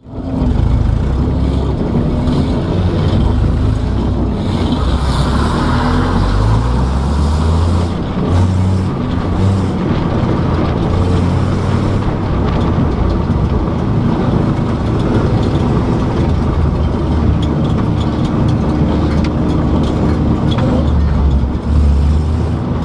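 Vehicle engine and road noise heard from inside the cabin while driving, the engine's low hum stepping up and down in pitch.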